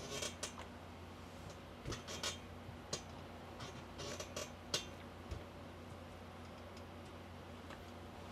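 Clothes being ironed quietly: a few soft clicks and fabric rustles from the iron and garment being handled in the first five seconds, then only a low steady hum.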